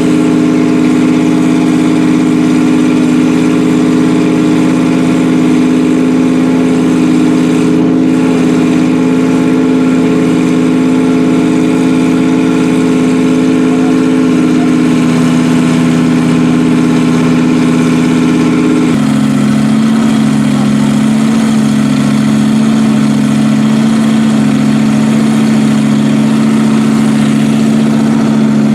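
A race car's engine running at steady revs in the paddock, dropping to a lower speed in two steps partway through and picking up again near the end.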